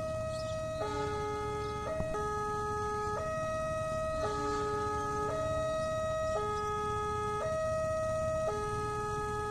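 Indonesian railway level-crossing electronic warning alarm sounding, steady tones that switch pitch back and forth about once a second, warning of an approaching train. A low steady rumble lies underneath.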